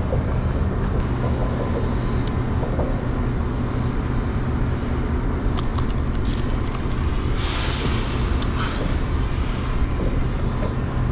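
Steady low engine hum, with a few light clicks around six seconds in and a brief rush of noise at about seven and a half seconds.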